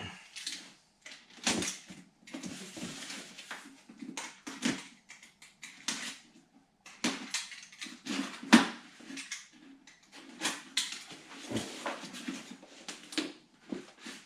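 A sneaker box and its packing paper being opened and handled: irregular rustling, crinkling and light knocks of cardboard and paper.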